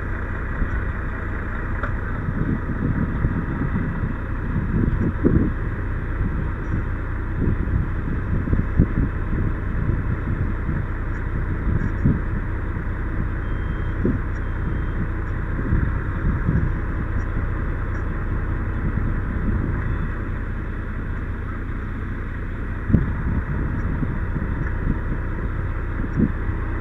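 A vehicle engine running steadily at idle, with a few brief knocks close by.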